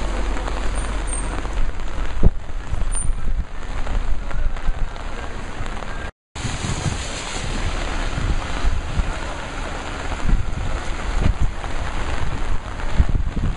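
Heavy rain hissing steadily, with wind rumbling and buffeting on the microphone; the sound cuts out briefly about six seconds in.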